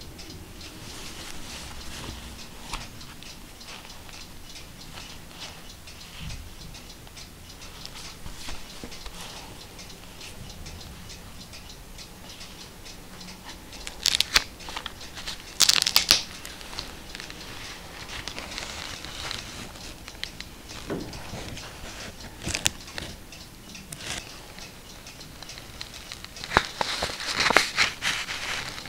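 Cotton-gloved hands handling a 1709 leather-bound book: soft rubbing and small clicks of glove on binding and old paper, with a few louder crackling rustles as the book is turned and its marbled cover opened, the loudest near the middle and near the end.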